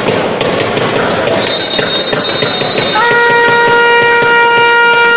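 Sports-hall buzzer sounding one long, steady horn note from about three seconds in, most likely marking the end of the first half. Before it a high whistle is held for about a second and a half, over constant noise from the court and crowd with many short knocks.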